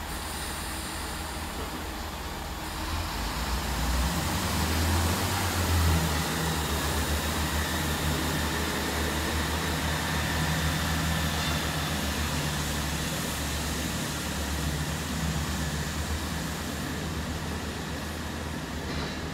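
Diesel engines of a Chiltern Railways diesel multiple unit running with a low drone, which grows louder about four seconds in and then holds steady, over the hiss of the train moving on the rails.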